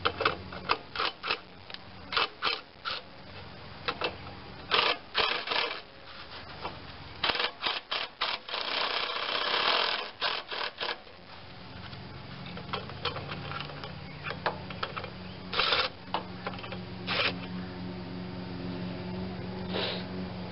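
Socket ratchet clicking in quick runs as the muffler's mounting bolts are worked loose, with a longer rasping stretch about nine seconds in. From about halfway, a steady low hum runs underneath the few remaining clicks.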